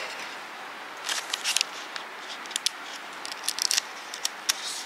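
Backing paper of a decor transfer crackling and crinkling in short, scattered crackles as it is peeled off, starting about a second in.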